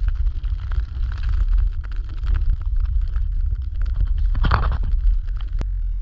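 Wind noise buffeting the microphone of a pole-mounted camera as a snowboard slides through soft snow, the board's scraping and hissing crackling over the steady rumble. The snow noise swells about four and a half seconds in, and a sharp click comes near the end.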